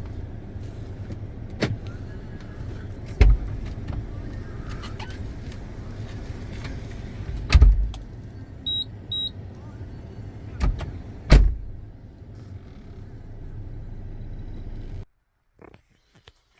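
A running vehicle engine makes a steady low rumble, with several sharp thumps and two short high beeps about nine seconds in. The rumble cuts off abruptly about a second and a half before the end.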